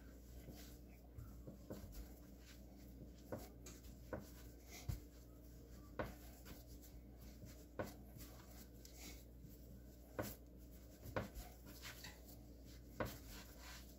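Hands kneading a stiff flour-and-water hardtack dough on a floured wooden board: faint rubbing with irregular soft knocks as the dough is pressed and turned.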